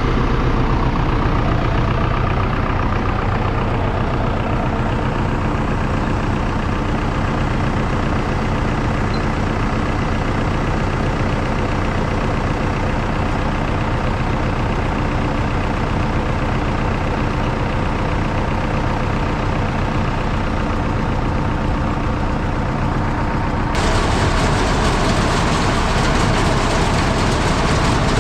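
Tractor and pull-type forage harvester (a Gehl 1275) running steadily, chopping corn. About four-fifths of the way through, the sound changes suddenly to a brighter, hissier machine noise.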